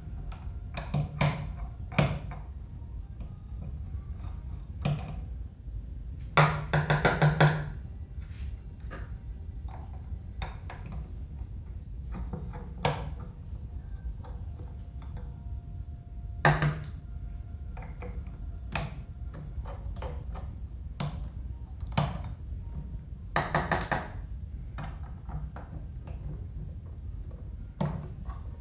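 Small wrench and metal fan-motor parts clinking and knocking during disassembly, single sharp taps scattered throughout, with a quick rattling run of clicks about seven seconds in and again near the end.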